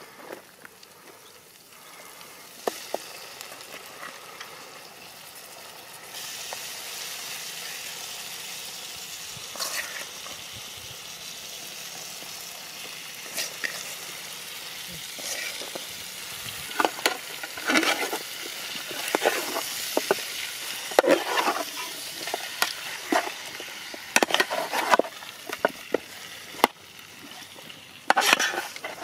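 Chicken pieces sizzling in hot oil in an aluminium pot over a wood fire, the hiss setting in about six seconds in. In the second half, a flat metal blade stirs them, scraping and clanking against the pot many times.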